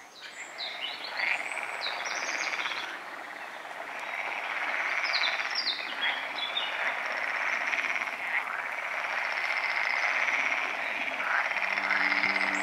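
A dense chorus of frogs calling from the water, a fast continuous trilling, with a few short high bird chirps over it. Soft sustained music notes come in near the end.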